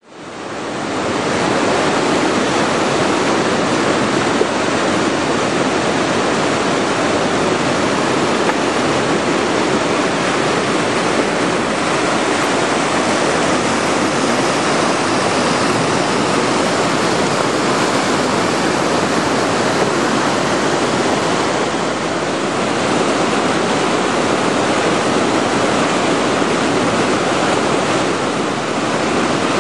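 Whitewater river rapids at 1700 cfs: a steady rush of water pouring over rocks, fading in over the first second and then holding even.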